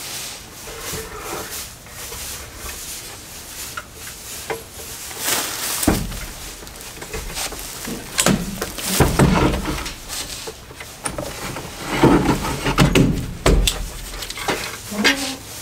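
Irregular knocks, scrapes and rustling of hands working a doghouse heater into place against a wooden wall, with the heaviest bumps about six, nine and twelve seconds in.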